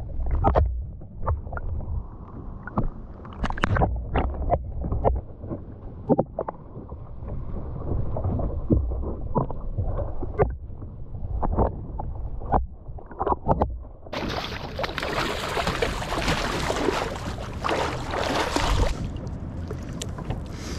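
Muffled underwater sound heard through a submerged camera, with many sharp clicks and knocks. About fourteen seconds in it cuts to open air: wind on the microphone and water splashing and sloshing against the side of a kayak while a hooked ray is unhooked at the surface.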